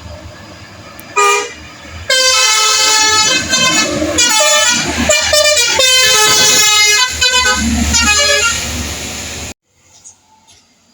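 A basuri telolet horn, a multi-note musical air horn fitted to an Indonesian truck or bus, plays a melody: one short note first, then a run of changing notes that stops abruptly near the end.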